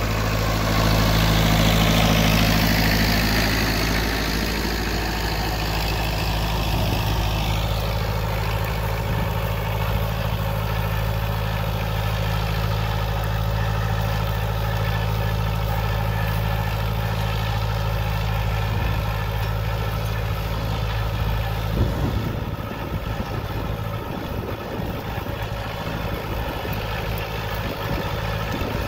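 Massey Ferguson 165's four-cylinder diesel engine running steadily under load as the tractor pulls a field cultivator and rolling basket, loudest in the first few seconds while it passes close by. A single knock comes just before the last quarter, after which the engine is a little quieter.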